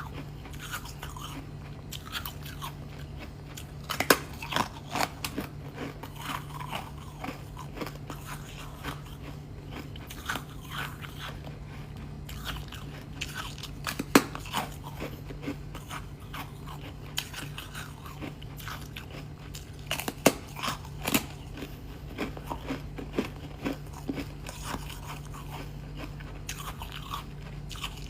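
Close-miked biting and chewing of thin, fluffy ice: irregular crisp crunches and crackles, with sharper bites about 4 s, 14 s and 21 s in, over a faint steady low hum.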